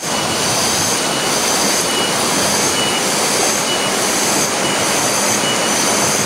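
Shallow stream rushing steadily over rocks, with a faint, short high chirp repeating about once a second.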